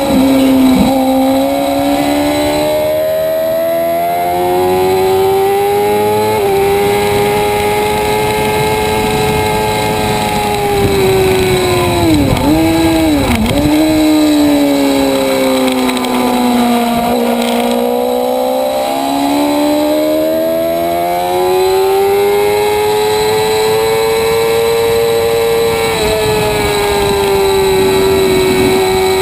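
Onboard sound of a vehicle's engine lapping a road-course circuit at speed. The engine note climbs steadily under acceleration, then drops sharply twice about twelve to thirteen seconds in, like downshifts under braking. After that it sinks low and climbs again to a high steady pitch near the end.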